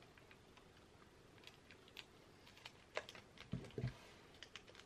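Faint, scattered clicks and light handling noise from scissors snipping open a foil blind bag and the bag being handled, with a sharper click about three seconds in and a couple of soft thumps just after.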